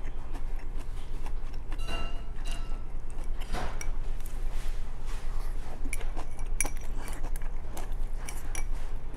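Chopsticks clicking against a small ceramic rice bowl as rice is scooped from it to the mouth, a few light clicks a second, denser in the second half, over a steady low hum.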